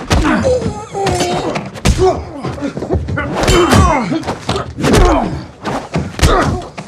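Staged film fight: a fast series of hits, thuds and knocks, one striking a metal briefcase raised as a shield, mixed with grunts and strained cries from the fighters.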